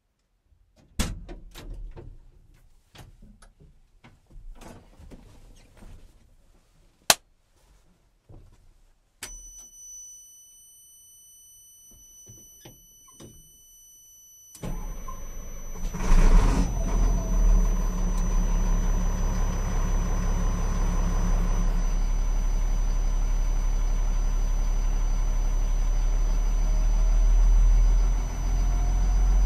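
Knocks and clatter inside a truck cab, with one sharp bang about seven seconds in, then steady thin high tones after about nine seconds. About halfway through, the M1078A1 LMTV's Cat 3126B inline-six diesel cranks and starts from cold. It flares briefly and settles into a steady idle, heard from inside the cab.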